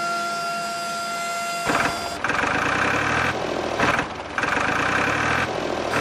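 A steady, high whine, then from about two seconds in a tractor engine running and revving, loudest in two stretches of about a second each with short dips between.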